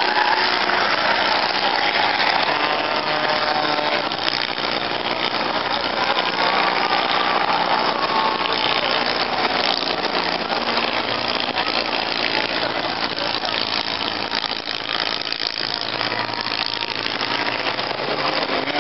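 Engines of a field of enduro race cars running around the oval together, blending into a steady din with some rising and falling pitch as cars pass.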